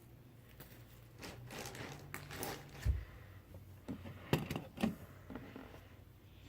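Scattered faint clicks and knocks of small handling noises in a small room, with a low thump about three seconds in and a quick run of clicks a second or so later.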